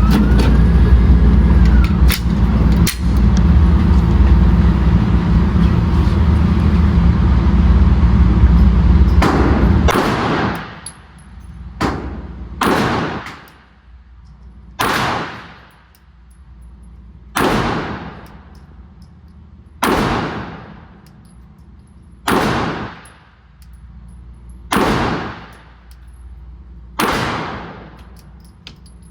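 Pistol shots fired one at a time in slow, deliberate fire, about ten of them, roughly every two to two and a half seconds, each with an echoing tail. A loud low rumble fills the first nine seconds before the shooting starts.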